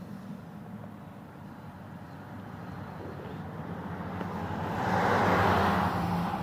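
Small go-kart engine running, with a steady low drone that swells louder about four to five seconds in. The carburetor has been jetted too large, which the owner thinks keeps it from idling well and makes it flood with gas.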